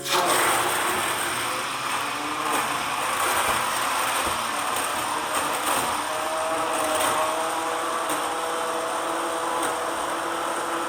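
Handheld immersion blender running continuously, a steady motor whir with a dense blending noise that starts abruptly.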